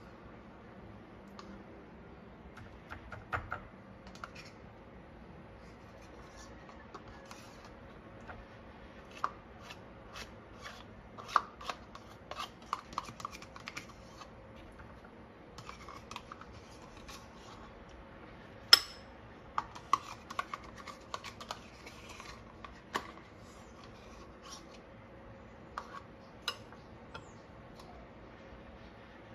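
Metal spoon scraping and tapping inside a plastic yogurt cup while yogurt is scooped out onto fruit in a bowl: scattered soft scrapes and light clicks, with one sharper click about two-thirds of the way through. A faint steady hum runs underneath.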